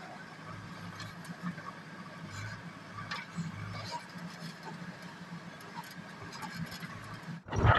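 JCB backhoe loader's diesel engine running steadily, with scattered light clicks over it. The sound cuts off suddenly near the end.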